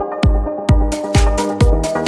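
Electronic dance background music: a steady kick-drum beat about twice a second under held synth chords, with a bright hissing percussion layer coming in about a second in.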